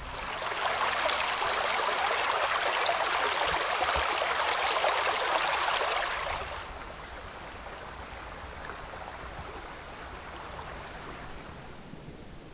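Shallow rocky stream rushing: a steady wash of water that drops to a much quieter background hiss after about six and a half seconds.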